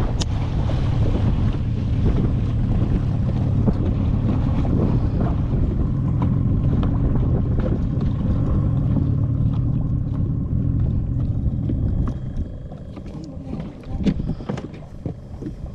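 A small boat's motor running steadily under way, with wind noise on the microphone; in the last few seconds the motor noise drops away.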